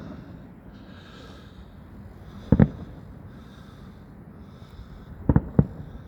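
Fireworks shells bursting with sharp bangs: a double bang about two and a half seconds in, then three more in quick succession about five seconds in.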